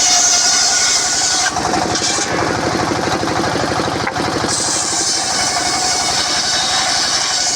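Engine-driven sawmill circular saw running steadily, the engine's low pulsing under a high whine. For about three seconds in the middle the high whine drops away and a heavier, lower sound takes over before the whine returns.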